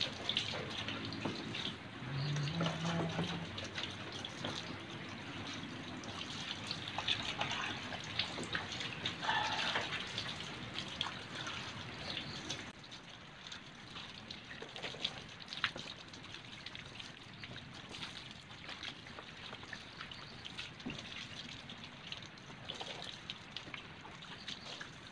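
Water from a garden hose running and splashing over a scooter's underside as it is washed, with scattered drips and small ticks; it turns quieter about halfway through.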